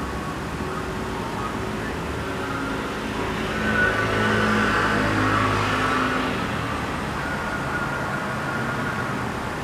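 A car passes along the road, growing louder and fading again over steady background traffic noise, loudest about four to six seconds in.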